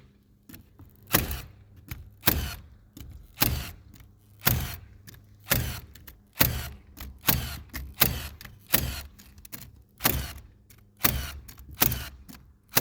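Ridgid 18-volt cordless framing nailer firing 2-3/8-inch ring-shank nails into a roof, about a dozen sharp shots at roughly one a second.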